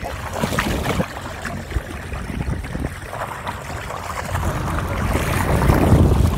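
Wind buffeting the microphone and choppy water splashing close by a small motorboat underway, swelling louder near the end.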